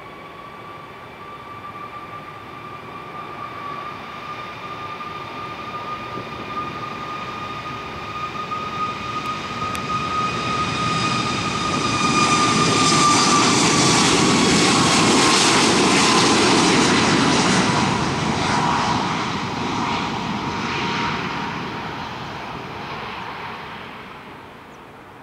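Boeing 737 jet engines passing close by. A high fan whine climbs a little in pitch as the plane approaches, then drops as the engine roar peaks about halfway through, and the sound fades away as the plane moves off.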